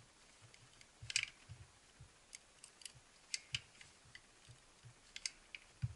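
Manual caulking gun being squeezed by hand, its trigger and plunger rod clicking irregularly with short low knocks, forcing cold, stiff window-weld urethane out of the cartridge. A louder cluster of clicks comes about a second in and a heavier knock near the end.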